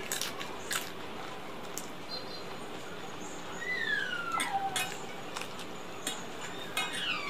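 Eating sounds: fingers working rice against a steel plate and chewing, with scattered small clicks and clinks over a steady fan hum. Twice a falling whistled chirp, like a bird call, cuts in: about halfway through and again near the end.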